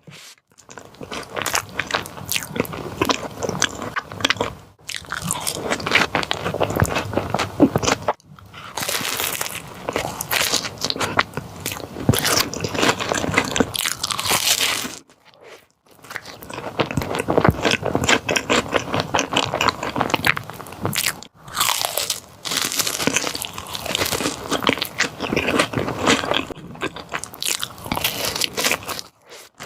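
Close-miked eating of chocolate caramel profiteroles: crunchy bites and chewing, in several stretches broken by brief silences.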